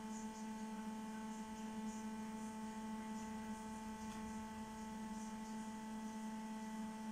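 Steady electric hum at one fixed pitch with a row of overtones, with faint light ticks now and then above it.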